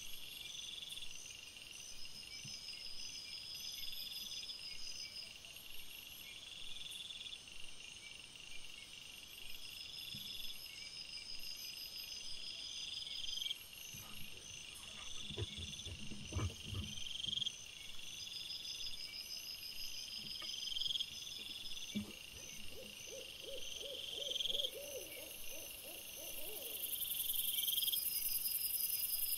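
Night insects chirping in several overlapping, evenly repeating rhythms; the high chirring grows louder near the end. Around the middle, wild boar make low grunting and rooting noises. A little later comes a rapid run of low call notes that rises and falls over a few seconds.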